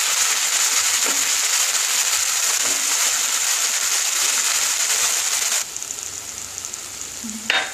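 Sliced capsicum and sprouted mung beans sizzling steadily in a kadai with a little water. About five and a half seconds in the sizzle cuts off abruptly to a fainter hiss, and a short knock comes near the end.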